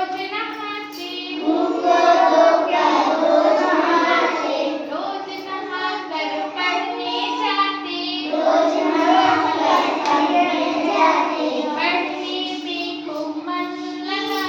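A child singing a Hindi children's poem in a sing-song voice, line after line with short breaths between, over a steady low hum.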